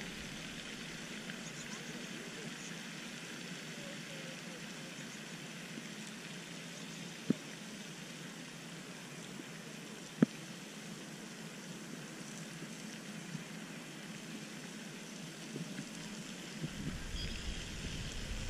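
Steady outdoor background hiss, broken twice by a sharp click, about seven and ten seconds in.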